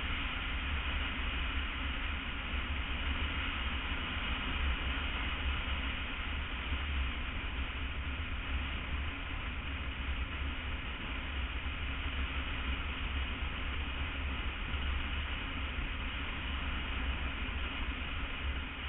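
Steady wind and road noise of a BMW F800 ST motorcycle cruising at highway speed, with a heavy low rumble and an even hiss.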